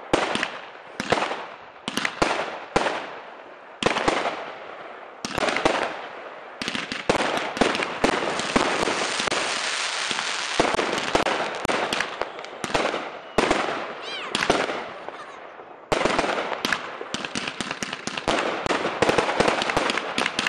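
Fireworks going off: sharp bangs about once a second at first, then several seconds of dense crackling, more bangs, and another long stretch of crackling near the end.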